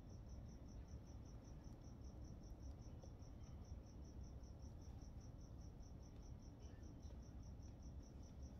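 Near silence: low room rumble with a faint, high-pitched chirp repeating evenly about five times a second.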